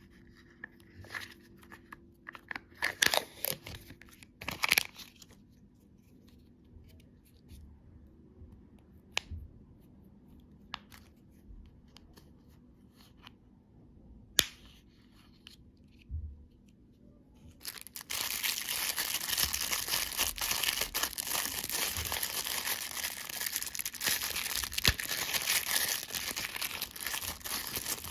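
Candy wrapper packaging being handled and torn: scattered crinkles and crackles with a couple of louder rips early on, then about ten seconds of continuous dense crinkling and tearing near the end.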